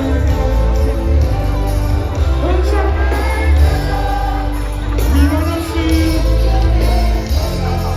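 Live reggae band music with a heavy bass line and voices singing over it.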